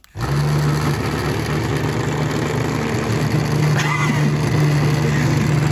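Vibration motor of a homemade Hexbug-style robot switched on by remote, buzzing loudly and steadily as the robot shakes itself forward across a desk. It starts just after the beginning.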